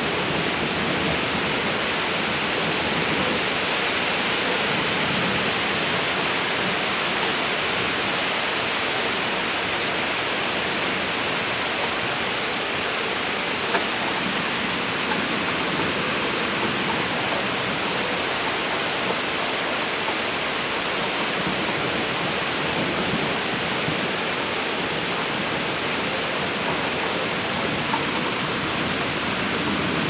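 Steady, even hiss of heavy rain falling during a rainstorm, with one brief click about halfway through.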